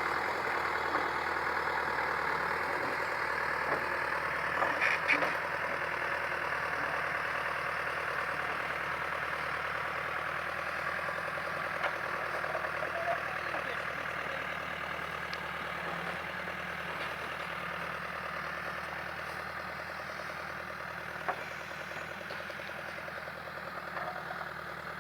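Caterpillar 428C backhoe loader's diesel engine running steadily and slowly getting fainter, with a few short knocks about five seconds in.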